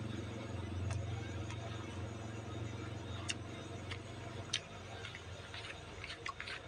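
A metal spoon clicking a few times against a paper-wrapped portion of fried rice on a hard counter as the leftover rice is scooped up, with a quick run of clicks near the end. A steady low hum sits underneath.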